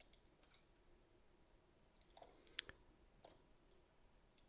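Near silence broken by a few faint computer mouse clicks, the loudest a quick pair a little past halfway.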